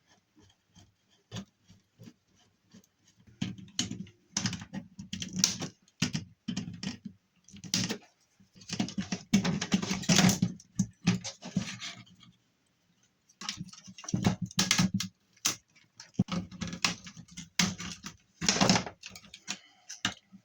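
Irregular clicking, scraping and clattering of hand tools and metal parts as a circuit board is worked loose from the metal chassis of a scrapped electronic unit, coming in several busy spells with quieter ticks between.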